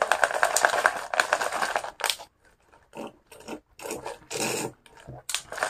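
Thin plastic drink bag crinkling close to the microphone as it is handled, dense and crackly for about two seconds, followed by a few short bursts as she sips through the straw.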